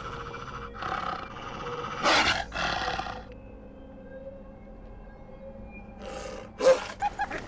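Wolves growling and snarling over a wild boar carcass as they feed, in short rough outbursts: a few in the first three seconds, then more near the end, the loudest just before it ends.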